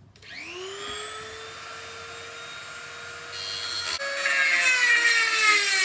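Small high-speed rotary grinder spinning up with a rising whine, then holding a steady high pitch. From about four seconds in it bites into the metal and grinds noisily, its pitch sagging under the load as it cuts out a leaking weld repair.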